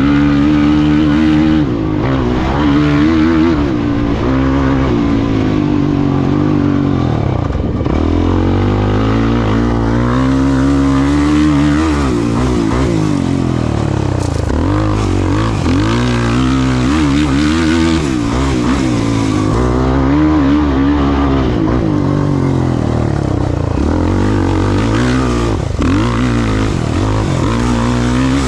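A racing off-road vehicle's engine, revving hard and constantly changing speed, its pitch climbing and dropping every second or two over a steady rush of noise.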